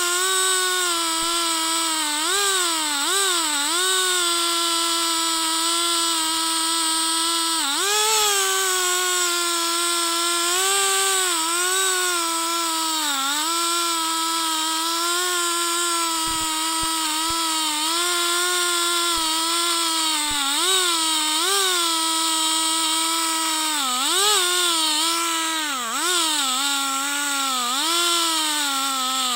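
Two-stroke chainsaw running at high revs while ripping a log lengthwise in a chainsaw mill. Its pitch dips and recovers every few seconds as the cut loads it down, and it falls off sharply at the very end.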